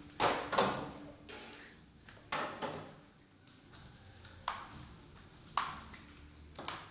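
A long pole knocking against a tiled floor, about eight sharp clacks at irregular intervals.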